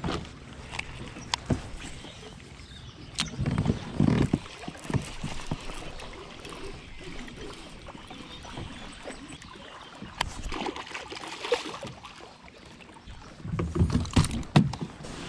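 Water lapping against a kayak hull, with scattered clicks and knocks from a baitcasting rod and reel being handled. Near the end comes a louder burst of splashing and thumps as a fish is swung aboard.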